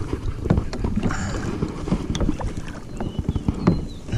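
Irregular knocks and bumps on a plastic kayak's hull, with water splashing alongside.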